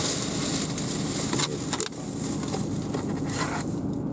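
Steady hiss and rumble inside a car cabin, with a few sharp plastic crinkles about one and a half seconds in as a packaged food tray is handled. The hiss stops near the end.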